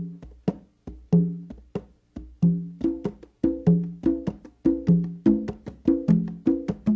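Salsa percussion break: the band drops out and pitched hand drums play alone with sharp clicks, sparse at first, then filling into a steady repeating pattern about three seconds in.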